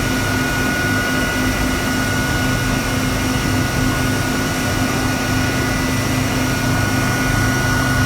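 CNC mill facing a metal part: the spindle and cutter make a steady high whine with a lower hum under it, over even cutting noise.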